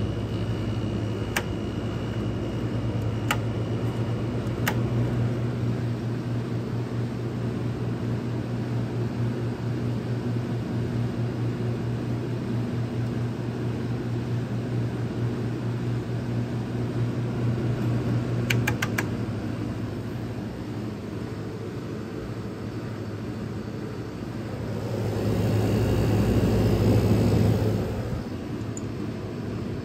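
1987 Friedrich Quiet Master 7500 BTU room air conditioner running, its compressor and fan making a steady low hum. A few sharp clicks come early and again about two-thirds of the way through, and the noise swells louder for a few seconds near the end.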